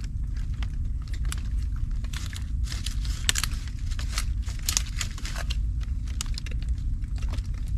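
Irregular crackling and rustling clicks over a steady low rumble.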